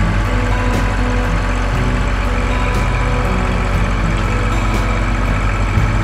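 Kubota L2502 tractor's three-cylinder diesel engine running steadily, heard from on the tractor.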